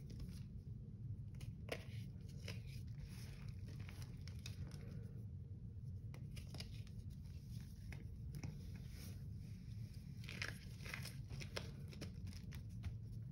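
Chunks of compressed Comet cleanser powder crumbling and crunching as a bare hand squeezes and breaks them, with irregular soft crackles and crunches over a steady low hum.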